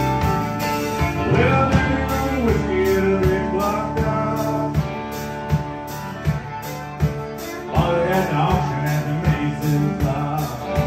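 Live country-rock band playing: a fiddle with sliding notes over strummed acoustic guitar, electric guitar, bass and a steady drum beat.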